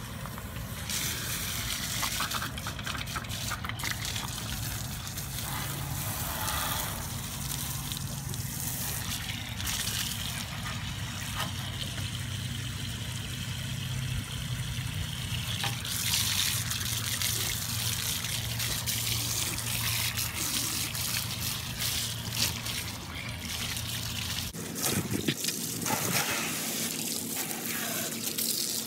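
Water from a garden hose running and trickling into the hollow metal pole of a basketball hoop, with water squirting out through a hole in the frame near the end.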